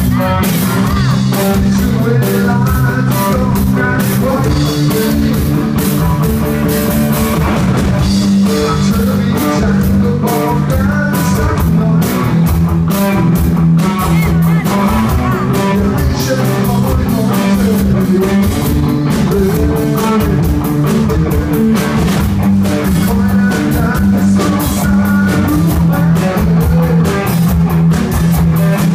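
Live rock band playing loud and steady: electric guitar over bass guitar and a drum kit.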